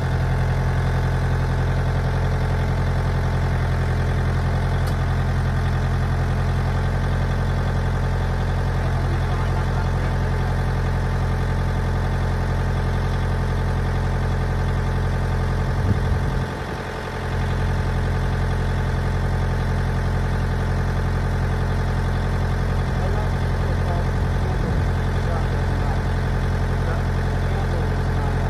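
A John Deere compact tractor's diesel engine idling steadily, briefly dipping about sixteen seconds in.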